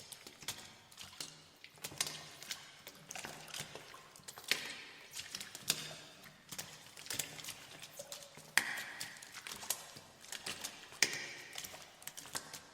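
Footsteps splashing through shallow water, one slow, uneven step about every second, each a wet slap with a short splash after it.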